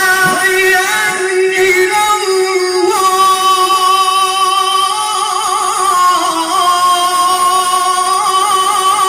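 Male Qur'an reciter holding one long high note in melodic recitation, the pitch kept nearly level with small quavering ornaments and no break for breath.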